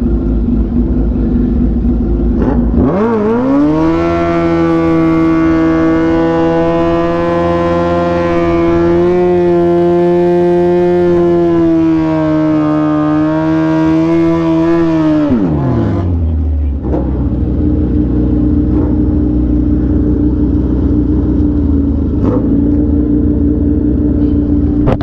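Suzuki Hayabusa's inline-four engine running at idle, then climbing in pitch as the bike pulls away. It holds one steady, higher pitch for about eleven seconds of riding, then drops back to idle about two thirds of the way through.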